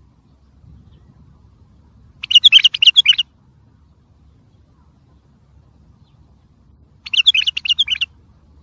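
A wild white-eared bulbul singing: two short bursts of quick, warbled notes, each about a second long, the first about two seconds in and the second near the end, over a faint low hum.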